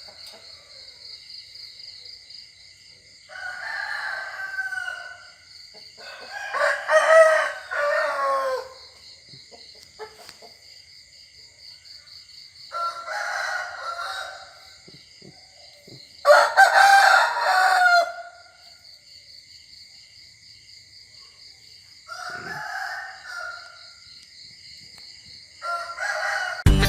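Roosters crowing about six times, with two loud close crows and fainter, shorter calls between them.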